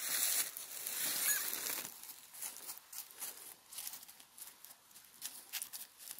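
Dry fallen leaves crunching and rustling underfoot in a run of short crackles, loudest in the first two seconds.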